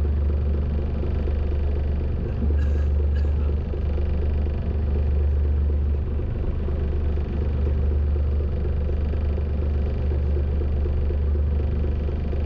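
A fishing boat's engine running steadily, a continuous low rumble, with a couple of faint clicks about three seconds in.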